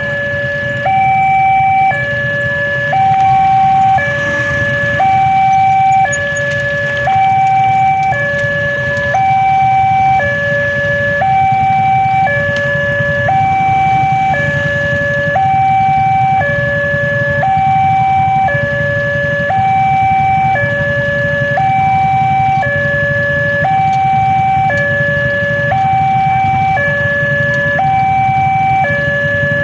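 Railroad level-crossing warning alarm sounding a steady two-tone signal, switching between a lower and a higher tone about once a second, to warn that a train is coming. A steady low rumble sits underneath.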